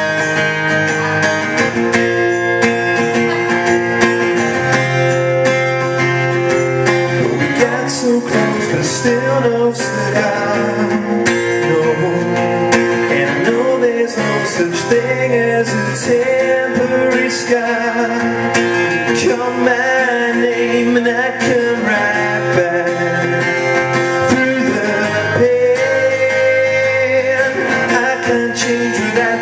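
Acoustic-electric guitar strummed steadily in chords, with a man's voice singing over it in places.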